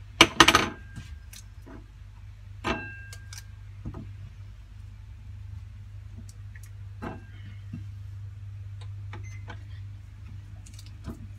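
White ceramic dishes clattering and clinking as they are set down and moved on a stainless steel counter, with a short cluster of strikes just after the start and another ringing clink a few seconds later. After that there are only light clicks from handling onion rings on the plate, over a steady low hum.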